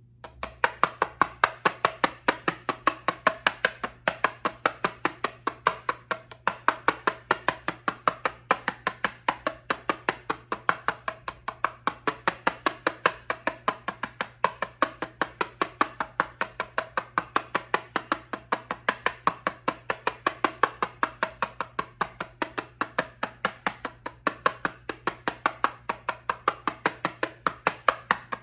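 Fingernails tapping quickly and steadily on an eyeshadow palette case, several crisp taps a second.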